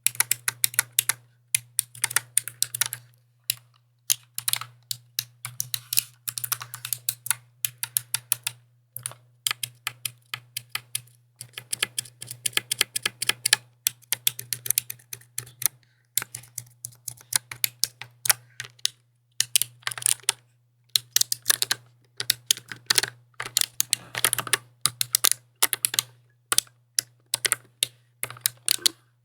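Typing on a mechanical keyboard: quick runs of sharp key clacks in bursts, with short pauses between runs, over a steady low hum.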